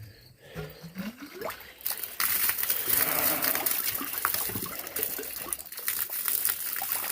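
Water being turned into a repaired farm water line: after a short rising squeak, water starts rushing and sputtering out of the line at the hydrant about two seconds in, and keeps running steadily.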